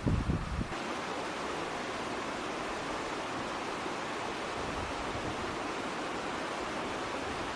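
Wind buffeting the microphone for the first moment, then a steady, even rush of flowing water.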